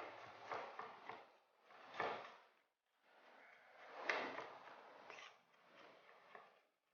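Faint knife work on a cutting board while garlic is prepared: several scraping, sliding passes with a few sharp taps, the clearest about 2 and 4 seconds in.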